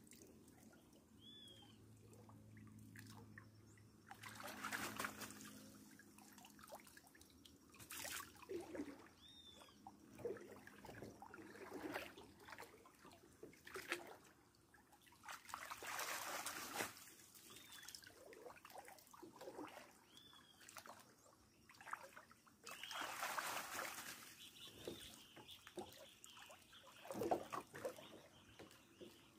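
Water splashing and trickling as a mesh hand sieve is swept through shallow river water and lifted out to drain, several times over.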